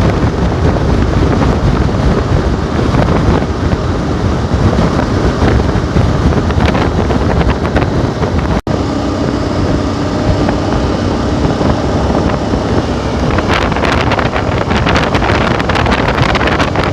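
Wind rushing and buffeting on the microphone of a motorcycle in motion, over the running of a KTM 1290 Super Adventure's V-twin engine. The sound drops out for an instant about halfway, and a patter of small clicks comes in over the last few seconds.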